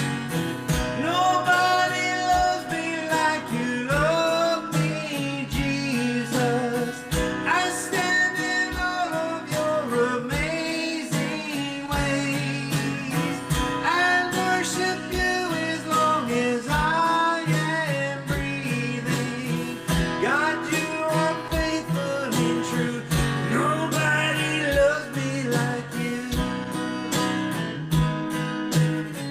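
A song sung to a steadily strummed acoustic guitar.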